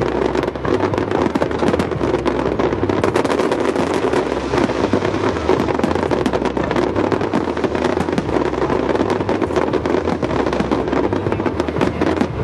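Fireworks display: a dense, unbroken barrage of aerial shells bursting and crackling, many bangs overlapping.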